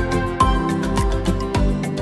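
Background music with a steady beat and a melody of bright, held notes.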